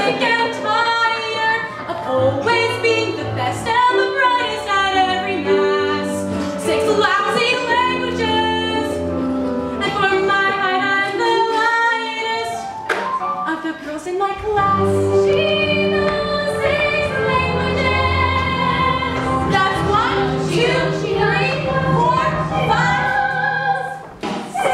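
A girl singing a musical-theatre song solo over live instrumental accompaniment.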